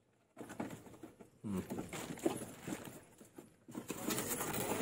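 Cardboard carton of an induction cooker being opened by hand: irregular taps, scrapes and rattles of the flaps and inner cardboard packing, starting about half a second in and breaking off briefly twice.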